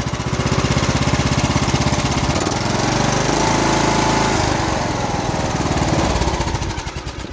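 Briggs & Stratton 21 HP engine on a riding mower running steadily, getting louder about a second in and easing off near the end. It is running properly again now that a misplaced carburetor main jet, which had been letting it overfuel and smoke, has been put back where it belongs.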